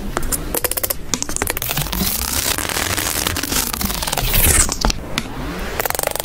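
Palette knife mixing thick paint in a plastic palette well: sticky, wet scraping with many crackling clicks as yellow and red are worked together into orange.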